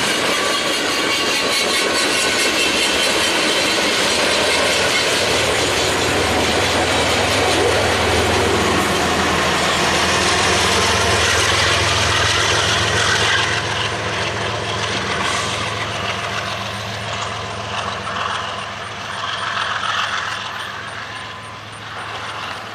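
GE ES44DC diesel locomotive, pushing as the rear distributed-power unit of a freight train, passing with its engine droning steadily over the noise of wheels rolling on the rails. The sound grows fainter from a little past halfway as the locomotive moves away.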